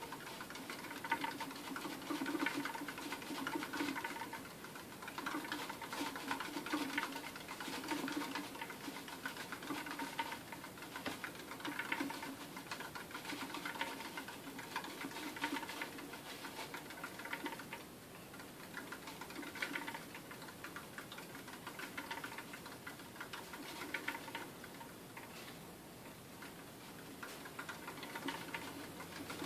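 African pygmy hedgehog running in a plastic exercise wheel: a fast ticking rattle from its feet on the running surface and the turning wheel, swelling and easing every second or two.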